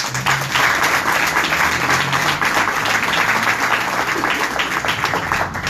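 Audience applauding in a room, many hands clapping at once in a dense, steady patter that starts suddenly and stops near the end.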